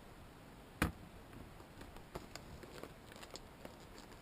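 A single sharp knock about a second in, then faint light clicks and rustles of a cut-open plastic blister package being handled.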